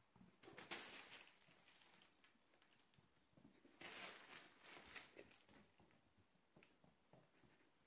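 Faint rustling and scuffling of kittens scampering on carpet and around a fabric cat tunnel, in two louder spells: one just after the start and one about four seconds in.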